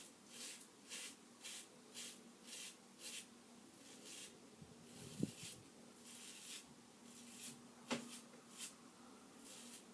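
Faint scratching strokes of a safety razor, the 3D-printed nylon Hydra x6, cutting through stubble, about two strokes a second and then slower and fewer after about four seconds. A soft knock comes about five seconds in and a sharp click near eight seconds.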